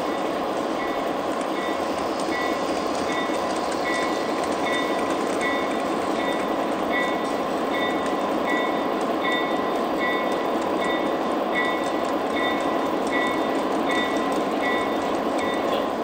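American Flyer S-gauge model freight train, led by Chessie System GP20 diesel locomotives, running along the track with a steady whir of motors and wheels on the rails and a steady high whine. Over it, a short high ding repeats a little faster than once a second.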